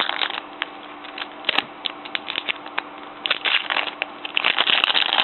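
Baseball trading cards and their pack wrapper being handled: irregular crinkling, rustling and small clicks of cards sliding against each other, busier near the end.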